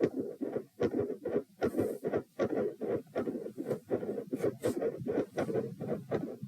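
Heartbeat heard through a stethoscope, with loud first and second heart sounds that are both split, giving a quick run of dull knocks. Scratching and rubbing noises from the chest piece come in a few times, sharpest about two seconds in and again near the end.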